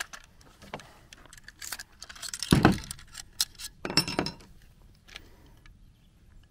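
Metal clicks and clinks of an AR-pattern 300 Blackout rifle being field-stripped, as the receiver is opened and the bolt carrier group is pulled out and laid on the table, with two heavier clunks about two and a half and four seconds in. The rifle is being opened up to look for the cause of repeated failures to feed.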